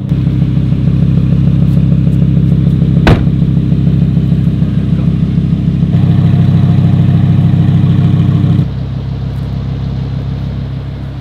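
Lamborghini Huracán's V10 engine idling, steady and loud, with a sharp click about three seconds in. The engine gets louder about six seconds in and drops back suddenly shortly after.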